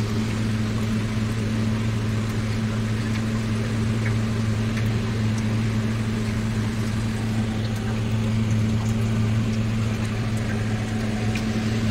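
A steady low motor hum with a faint hiss over it, unchanging throughout.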